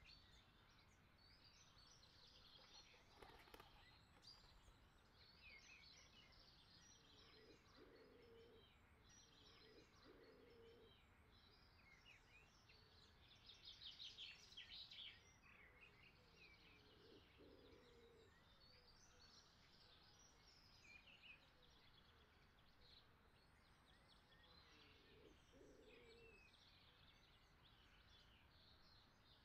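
Near silence with faint birdsong: scattered short chirps and twitters, a little louder for about a second and a half around the middle.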